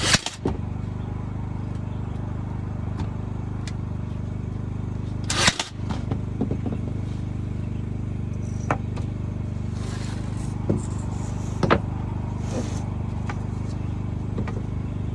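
Two sharp impacts about five seconds apart as nails are driven into a plywood cart frame, with a few lighter clicks and knocks between, over a steady machine hum.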